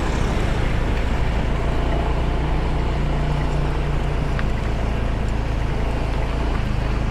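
Car engine and road noise heard from inside the cabin, a steady low rumble while driving slowly.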